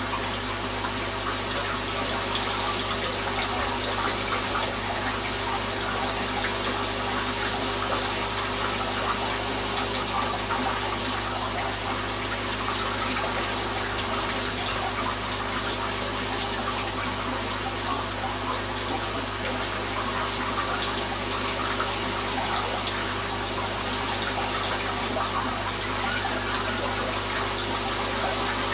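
Aquarium water bubbling and trickling steadily, over a steady low hum.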